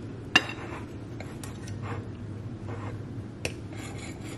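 Knife and fork cutting through a stack of pancakes, the cutlery clicking against the plate a few times, two clicks sharper than the rest: one just after the start and one near the end.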